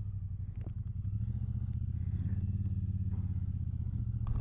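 Triumph Bonneville's parallel-twin engine running steadily while riding, a low even drone that picks up slightly after about a second. A short click near the end.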